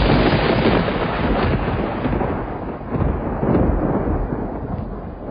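Heavy ocean surf breaking, a loud, low rumbling wash of whitewater that grows duller after about two seconds.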